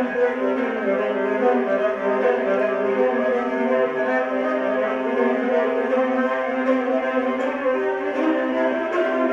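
Music played on bowed string instruments, cello and violin among them, with several notes held at once in a dense, steady texture.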